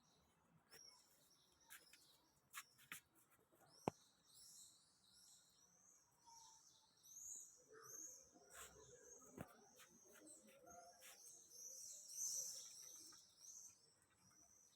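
Lovebirds chirping: a steady run of short, high chirps that grows busier near the end, with a few sharp clicks mixed in, the loudest about four seconds in.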